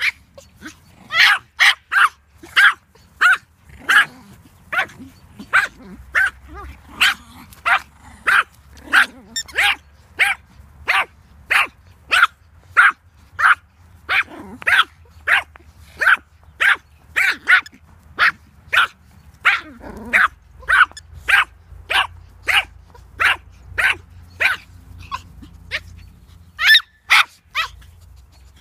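Teacup Yorkshire terrier barking over and over, short high-pitched yaps about two a second, with a brief pause near the end.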